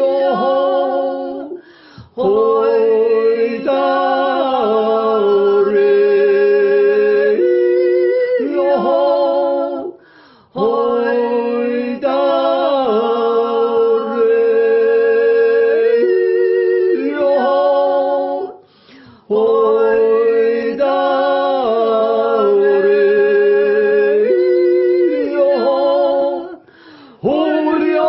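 Two voices singing a slow, solemn Alpine yodel (Jodler) a cappella in two-part harmony, a tenor joining the lead. It moves in long held notes that slide between pitches, in phrases broken by short breathing pauses about every eight seconds.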